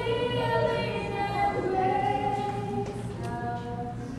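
A woman singing in long held notes that step to a new pitch a couple of times.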